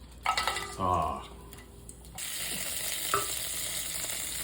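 Chopped green onions sizzling in hot oil in a pan to make scallion oil. The sizzle comes in suddenly about two seconds in and holds steady, with one light clink about a second later.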